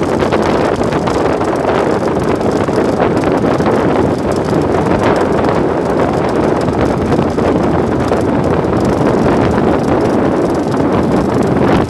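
Steady wind buffeting the microphone over the running motor of a small wooden river boat under way.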